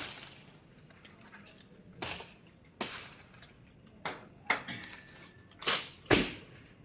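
About seven sharp knocks and swishes at irregular intervals over a faint steady hiss, the loudest two near the end.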